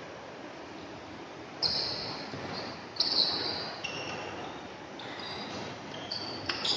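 Badminton rally: sharp racket strikes on the shuttlecock and high-pitched squeaks of players' shoes on the court floor, over background crowd noise. The two loudest strikes come about a second apart, with more short squeaks after them.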